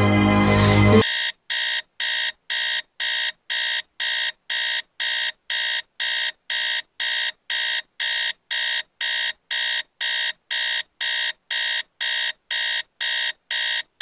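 Music cuts off about a second in and a smartphone alarm starts beeping: evenly spaced high-pitched beeps, just under two a second, that stop at the end when the alarm is dismissed.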